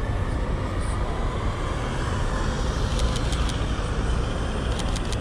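Steady road traffic on a busy city avenue, cars driving past with a continuous low rumble. Short runs of quick clicks come about three seconds in and again near the end.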